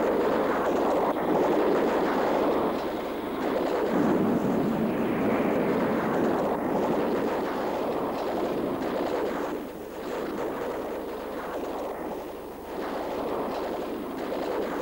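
Jet aircraft flying over: a steady rushing noise that eases somewhat after about ten seconds.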